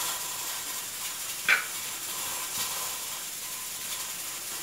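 A utensil stirring raw chicken pieces and sliced onion in a pan, with quiet scraping and one short, sharp tap about a second and a half in.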